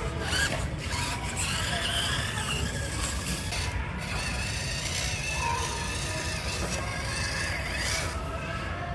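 Micro RC crawler's small electric motor and gears whining as it drives and climbs through loose sand, the pitch rising and falling with the throttle.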